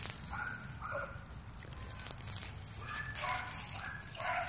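A dog barking, faint and repeated, in short barks that come in two pairs, one about half a second in and one about three seconds in.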